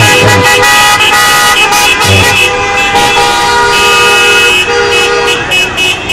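Several car horns honking at once in long, overlapping blasts. Near the end a rising-and-falling wail sounds a few times.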